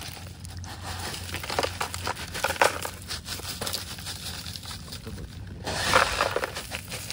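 Crushed ice poured from a plastic bag onto chopped sugarcane in a plastic basin: chunks of ice clattering and knocking together, with the plastic bag rustling. The pour is loudest about two and a half seconds in and again near six seconds.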